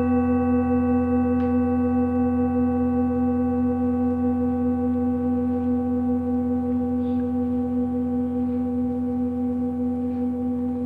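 Monochord strings ringing in a steady sustained drone with many overtones, slowly fading.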